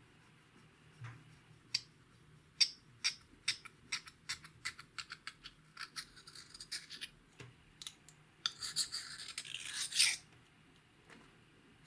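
A run of sharp taps and clicks, then two stretches of scratchy scraping, from a hard tool working at makeup.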